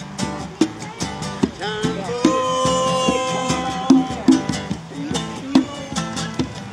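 Live acoustic song: strummed acoustic-electric guitar with hand-drum beats. A voice sings one long held note from about two seconds in until about three and a half seconds in.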